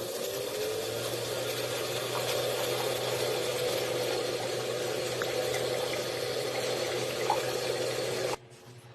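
Gaming PC cooling fans spinning up and running, a steady whir with a low hum, until the sound cuts off suddenly near the end.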